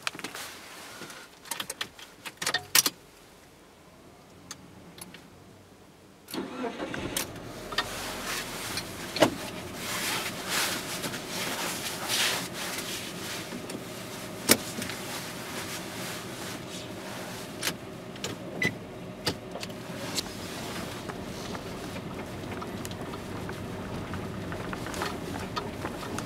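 A few clicks, then the 2003 Mitsubishi Colt's engine starts about six seconds in and runs steadily as the car moves off, heard from inside the cabin.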